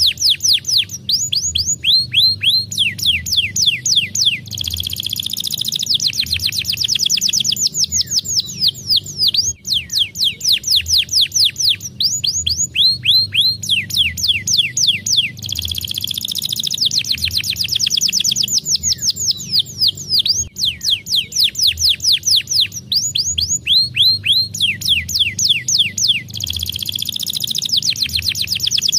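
Domestic canary singing a fast song: rapid trills of short descending whistles, one run after another with brief breaks between.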